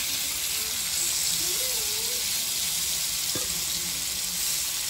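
Masala-marinated prawns shallow-frying in hot oil in a flat black pan: a steady sizzle. A single light click about three and a half seconds in.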